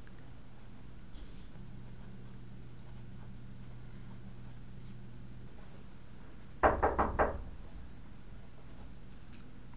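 Pencil scratching on notebook paper over a steady low room hum. About two-thirds of the way through come four quick, sharp knocks, the loudest sound.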